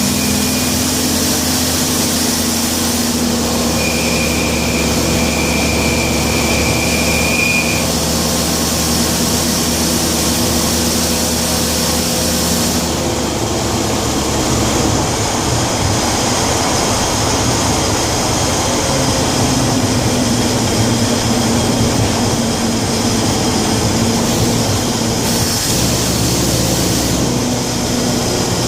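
A 1967 Chevy G10 van driving, heard from inside the cab: steady engine and road noise, the engine note changing about halfway through and again near the end. A thin, high steady whine sounds for about four seconds near the start.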